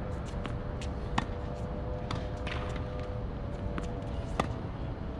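Tennis ball hit with a racket: two sharp pops about three seconds apart, with fainter ball bounces and clicks between, over a low steady rumble and a faint hum.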